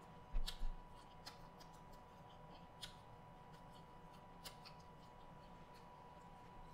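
Scattered crisp clicks and crackles of a cooked shrimp's shell being peeled by hand, with two louder knocks about half a second in. A faint steady high hum runs underneath.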